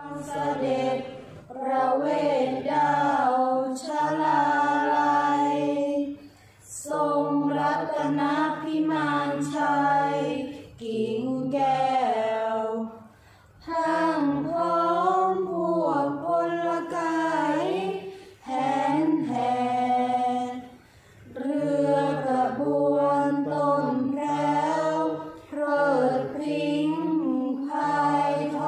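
A group of young voices, mostly female with one male, chanting Thai kap he ruea boat-procession verse in unison without accompaniment. The chant comes in drawn-out melodic phrases of a few seconds each, with short breaks between them.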